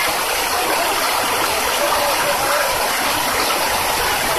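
Ornamental fountain's water jets spraying and splashing steadily into the pool, a continuous hiss and patter of falling water.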